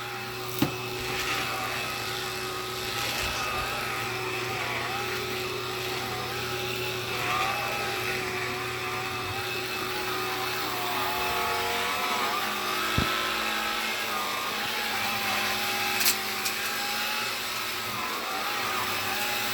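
Black & Decker cordless lithium pet vacuum running steadily over carpet, its motor tone wavering slightly as it is pushed about, with a few sharp clicks or knocks.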